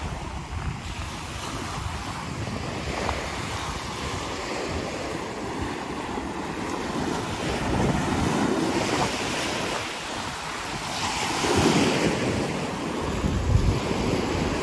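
Small sea waves breaking and washing up a sandy shore, a steady surf hiss that swells louder a few times in the second half. Wind buffets the microphone with a low rumble.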